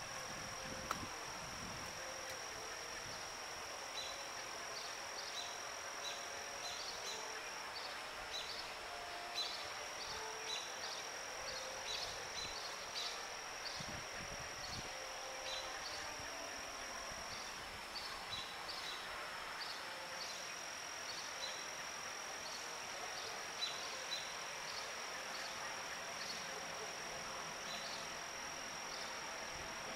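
A steady high-pitched insect trill, dropping out for a couple of seconds past the middle, with many short chirps over it and a faint background hiss.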